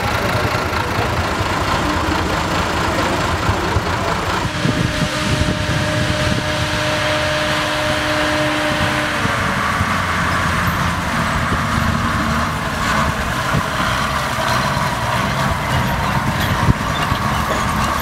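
Schlüter tractor diesel engines running steadily: first a Schlüter Super 1250 V, then, after a change about four seconds in, a Schlüter pulling a Kelly chain harrow across a field. A steady hum sounds for a few seconds in the middle.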